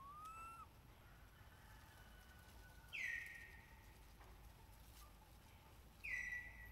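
Faint forest background with high animal calls: a short rising whistle at the start, then two sharp calls about three seconds apart, each dropping quickly in pitch.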